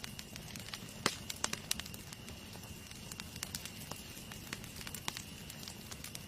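Wood fire crackling, with irregular sharp pops and snaps, a few louder ones about a second in, over a low steady rustle.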